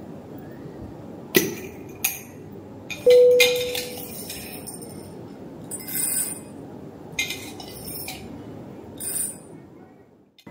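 Clinks and knocks of coffee-making utensils, cups and equipment being handled at a kitchen counter, about six short clatters. The loudest, about three seconds in, is a ringing clink of glass or ceramic that dies away over about a second.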